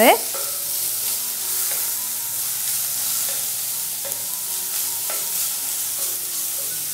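Julienned vegetables sizzling steadily in hot oil in a stainless-steel kadai on high flame, stirred and tossed with a spatula that scrapes faintly now and then.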